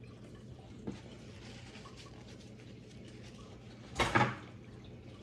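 Crumbled pecan topping sprinkled by hand into a slow cooker's crock, a faint light pattering of small pieces landing. About four seconds in, a single louder knock, like something set down on the kitchen counter, over a low steady hum.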